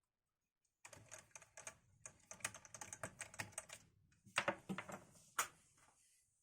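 Rapid small clicks and taps of a screwdriver and plastic laptop parts while a hard drive is being freed from a laptop's underside, with a few louder clicks near the end.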